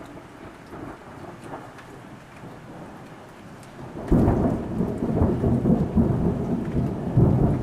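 Rain falling, then about four seconds in, a sudden loud crack of thunder that goes on rumbling heavily.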